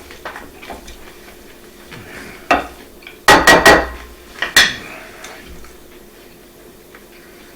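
Metal utensil clinking and scraping against a dish: one knock about two and a half seconds in, a quick run of loud clinks just after three seconds, and one more near four and a half seconds.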